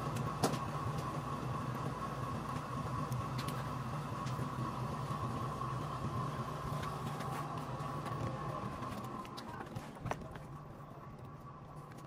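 Motorized potter's wheel running with a steady hum and a thin high whine, with a few sharp clicks over it; it grows quieter near the end.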